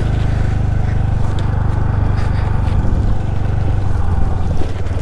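Scooter's small single-cylinder engine running steadily at low speed, heard from the rider's seat.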